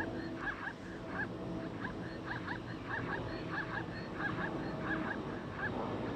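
Plains zebras barking: short, high, honking yelps repeated a few times a second in runs, over a faint steady hum.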